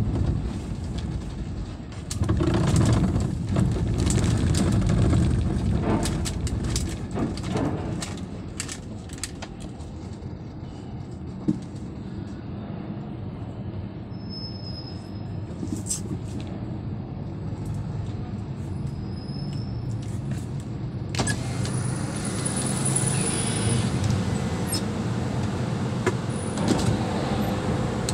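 Steady low rumble of vehicle and ship engines in a ferry's enclosed steel car deck, with scattered sharp metallic knocks during the first third. From about three-quarters of the way in the rumble grows louder and brighter with a faint high whine, as vehicles drive onto the deck.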